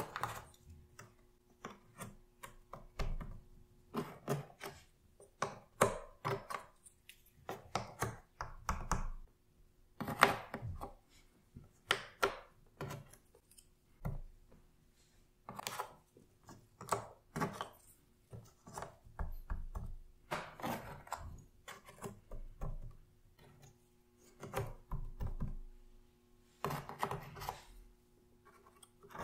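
Cardboard jigsaw puzzle pieces being handled and pressed into place on a puzzle board: irregular clusters of small clicks, taps and scrapes with short pauses between.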